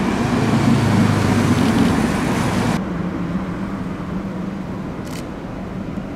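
Road traffic noise with a tram approaching along its track. About three seconds in it cuts to a quieter scene: a steady low hum as a tram approaches over grass-covered track.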